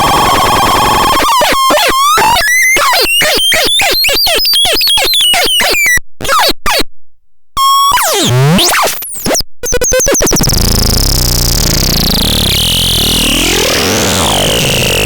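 Electronic synthesizer making harsh, noisy electronic tones: a steady buzzy tone, then a fast run of short pitched chirps that sweep up and down. About seven seconds in it cuts out briefly, then comes a falling sweep and a noisy wash with wavering, gliding tones.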